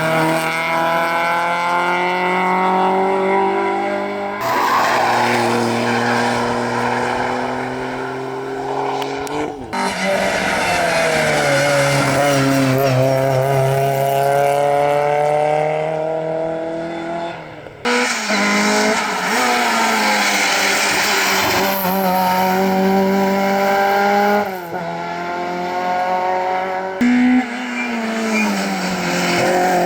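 Rally car engines at full throttle on a stage, the note climbing through each gear and dropping at the shifts, in a run of short clips that cut abruptly from one car to the next.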